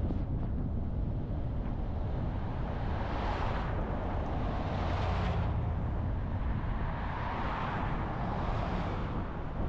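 Steady road and wind noise from a moving car, a constant low rumble of tyres and engine. Over it, a rushing sound swells and fades about four times.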